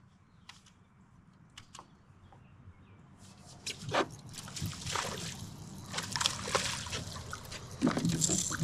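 Water sloshing and trickling against a kayak, starting with a few light clicks and growing louder and busier from about three seconds in.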